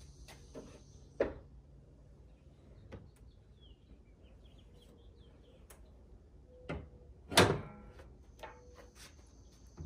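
Aftermarket fiberglass hood of a Cadillac CTS coupe being lowered gently onto the car: a light knock about a second in, then a louder knock with a brief rattle about seven and a half seconds in as the hood comes down onto the body.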